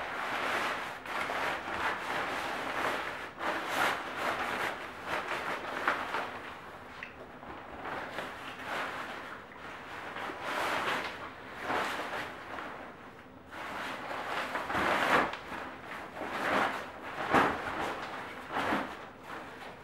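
Rustling and swishing of a large nylon stroller travel bag as it is pulled over a stroller and tugged and smoothed by hand, coming in uneven bursts.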